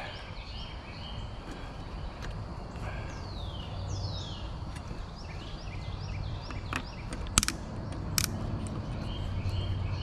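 Birds singing outdoors in repeated falling, whistled phrases over a steady low hum. Two sharp clicks come about seven and eight seconds in as the plastic tabs of the fuel pickup screens are worked loose.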